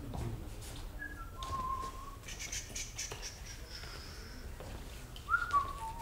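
Whistling: a few held notes stepping down in pitch about a second in, a thinner high whistle through the middle, and a louder note near the end that slides down.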